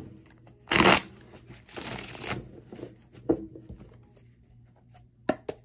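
A deck of tarot cards being shuffled by hand, with two brief rushes of cards about a second and two seconds in. A few light clicks follow as the deck is handled.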